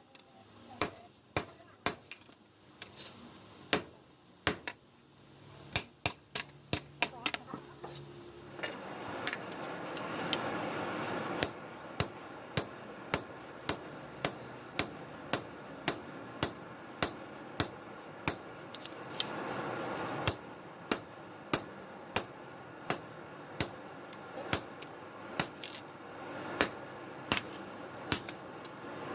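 Hammer striking steel, a steady run of ringing metallic blows at about one and a half a second, as a chainsaw bar is worked into a machete blade.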